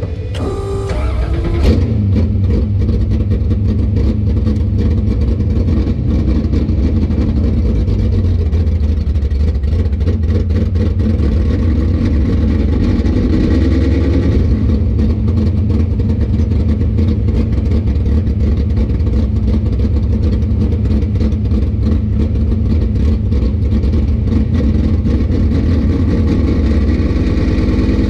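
Vintage muscle car's engine started, heard from inside the cabin: a short rising crank that catches about two seconds in. The engine then runs steadily at low speed as the car rolls along.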